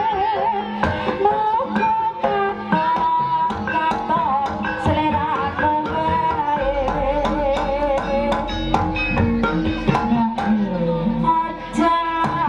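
East Javanese jaranan-style gamelan accompaniment: a fast run of hand-drum strokes under a wavering high melody line, with a low sustained tone entering about halfway through.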